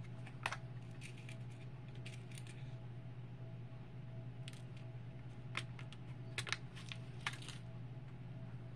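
Small scattered clicks and taps as tiny metal jump rings and jewelry pliers are picked up and handled on the beading mat, in a few short clusters, over a steady low hum.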